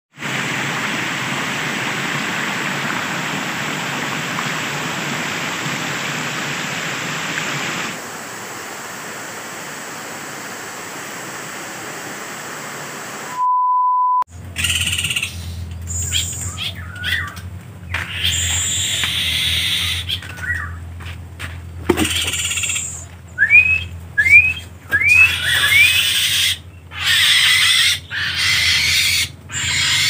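Water pouring and splashing over a small rocky waterfall, dropping in level about eight seconds in, then a short steady beep. After that, short rising bird chirps, four in quick succession near the end, over a steady low hum.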